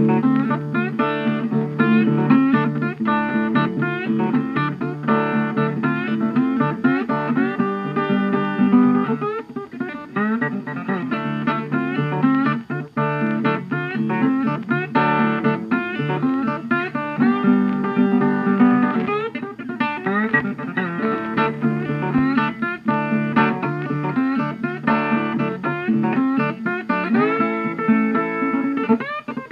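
Background music led by a plucked guitar, with rapid picked notes and strummed chords.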